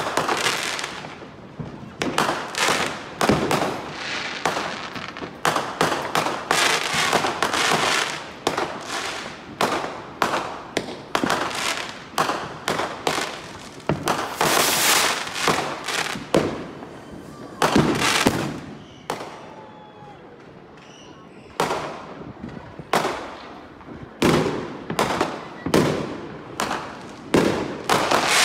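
Aerial fireworks bursting one after another, a dense run of bangs and crackles, with a lull of about two seconds two-thirds of the way through.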